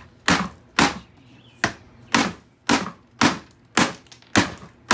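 A claw hammer striking the hard plastic ball housing of a Dyson vacuum cleaner: about eight sharp blows, roughly two a second, with a short pause after the second.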